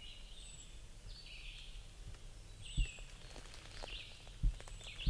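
Footsteps walking slowly through dry leaf litter on a forest floor, a few dull thuds with light rustling, while birds call in the background.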